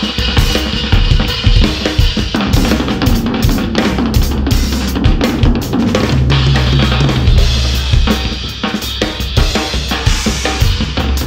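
A drum kit played in a busy groove: rapid kick, snare and cymbal hits, with low held tones sounding underneath from about six seconds in.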